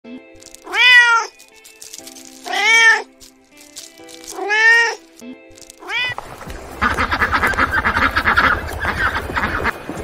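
Domestic cat meowing three times, each meow about half a second long and rising then falling in pitch, about two seconds apart. About seven seconds in, a rapid run of goose calls chatters for about three seconds.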